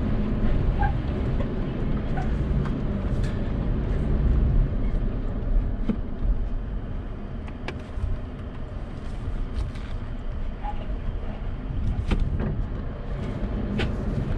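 Toyota Tacoma crawling slowly over a rocky trail: a steady low engine and drivetrain rumble heard from inside the cab. Scattered sharp clicks and knocks, strongest near the end.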